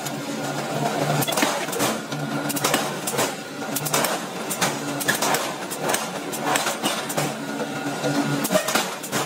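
Hot forging of a red-hot steel ring on an open die: repeated sharp metal knocks, roughly two a second at uneven spacing, over a low machine hum that comes and goes.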